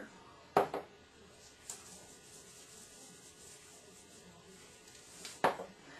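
Salt and pepper shakers handled over a bowl of ground beef mixture: two short, sharp sounds about five seconds apart, with faint background hiss between.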